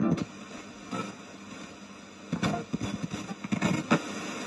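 Radio ghost box (spirit box) sweeping through stations: steady static hiss broken by short, chopped snatches of broadcast audio, several times in a few seconds.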